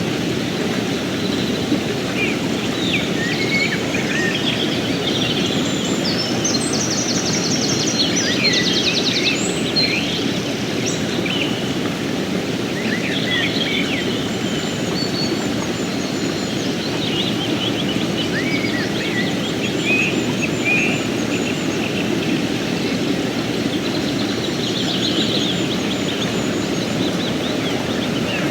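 Mountain stream flowing with a steady, even rush of water, while songbirds chirp and call over it, with a fast rattling trill a few seconds in.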